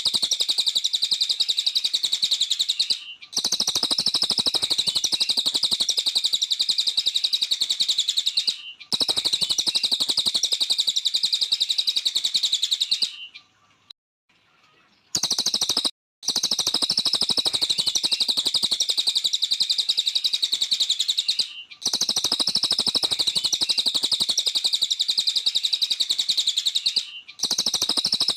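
Cililin bird singing long, rapid, high-pitched twittering phrases of about five seconds each, separated by short breaks, with one longer pause of about two seconds near the middle.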